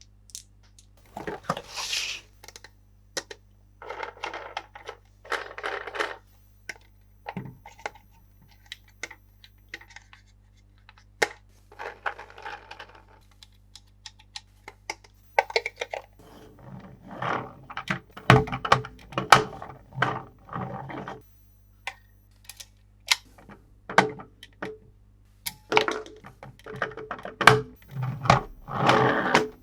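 Plastic toys and their packaging handled close to the microphone: crinkling wrap, sharp clicks and light knocks of hard plastic, with heavier thuds and clatter in the second half.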